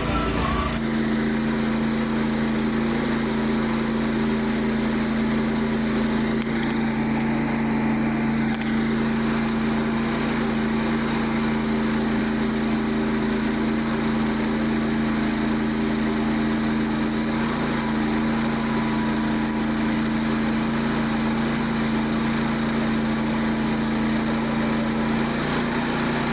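Small gasoline engine of a portable bandsaw mill running steadily at a constant speed, with an unchanging pitched drone.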